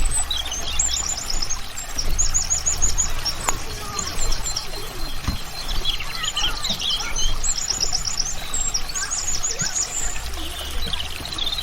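Songbirds singing in quick runs of high, repeated chirps, over the steady trickle of running water.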